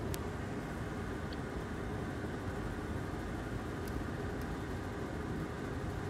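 Steady low rushing noise, even throughout, with one faint click just after the start.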